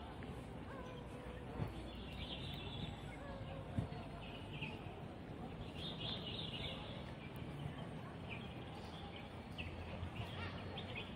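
Steady outdoor background noise with short bird chirps coming every second or two.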